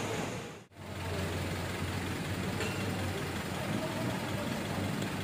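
Bus engines idling, a steady low drone over the bustle of the terminal. The sound cuts out for an instant less than a second in, then resumes.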